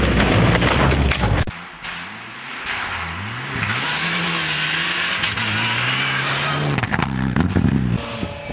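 Rally cars on a snow stage: a car passes very close in a loud rush of thrown snow that stops about a second and a half in. Then a Mitsubishi Lancer Evolution rally car's engine revs up, dips once and rises again to hold high revs as it slides through a corner with a hiss of snow spray, with a few sharp cracks near the end.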